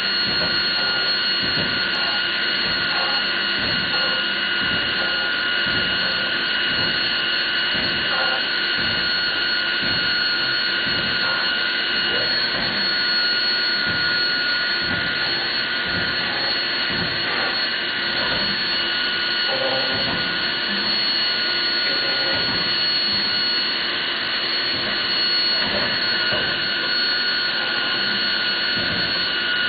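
Biesse Rover 336 CNC router machining a melamine-faced chipboard panel: its spindle gives a steady high whine, over the irregular rasping of the bit cutting the board.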